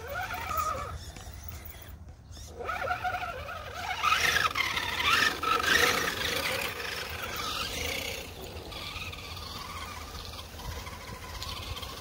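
Electric whine of a small RC rock crawler's brushed 540 motor and geartrain (a 35-turn motor in an SCX10 II-style clone) as it is driven over mud. The pitch rises and falls with the throttle, with a brief lull about two seconds in and the strongest whining from about four to seven seconds in.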